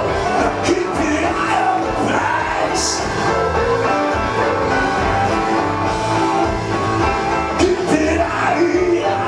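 Male singer singing live over a loud karaoke backing track with drums and guitar.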